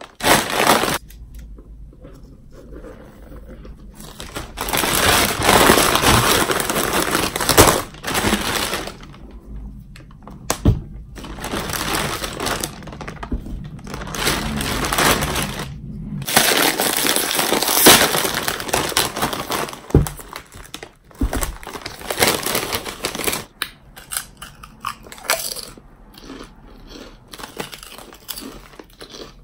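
Thin plastic shopping bag rustling and crinkling loudly as hands rummage in it and pull out snack packages, in long spells of several seconds each. Near the end it gives way to softer crinkles and the crunch of a potato chip being bitten.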